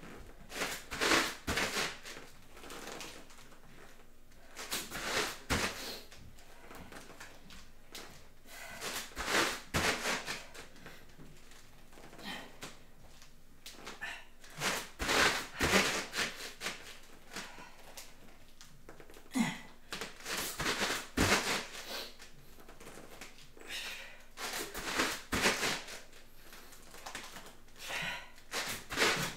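A person breathing deeply and audibly, a breath every four or five seconds, while recovering from exertion.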